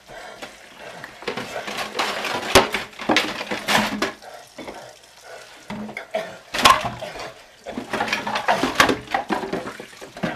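Dishes and a frying pan clattering against each other and the stainless steel sink as they are washed by hand under a running tap, with several sharp knocks.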